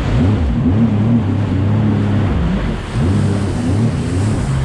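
Jet ski engine, just rebuilt, revving on the water, its pitch climbing, dipping about three seconds in and climbing again, over the rush of water and wind.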